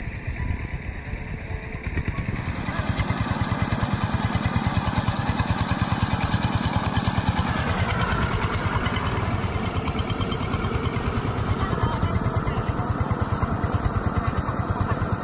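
Two-wheel walking tractor with steel paddy wheels working a flooded rice field, its engine running with a steady, even beat that grows louder about two seconds in.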